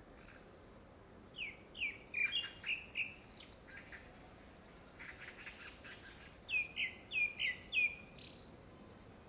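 Grey-backed thrush singing two phrases. Each is a quick run of five or six short whistles that slide downward, ending in a high, thin note. The singer is taken for a male giving courtship song ahead of a second brood.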